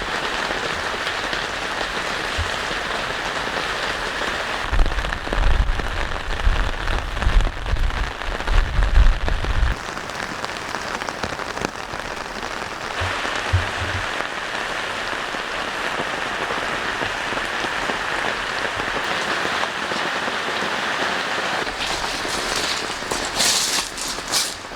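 Heavy rain pouring down steadily, an even hiss of drops. A low rumbling comes and goes from about five to ten seconds in, and a few sharp clicks sound near the end.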